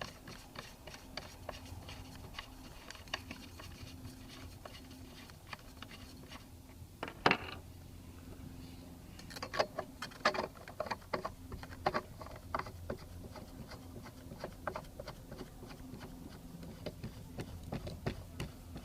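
Handling noise from an airgun's muzzle device being changed, with the stock end cap coming off and a 3D-printed LDC suppressor going on: many small clicks, taps and scrapes, and one loud sharp knock about seven seconds in.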